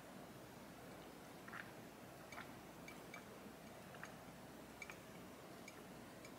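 Near silence with faint gulps of someone drinking from a glass jar, a soft click roughly every second.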